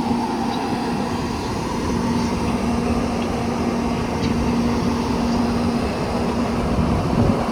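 Electric train running through the station: a loud, steady rolling and motor noise, with a steady hum that comes in about two seconds in and holds until near the end.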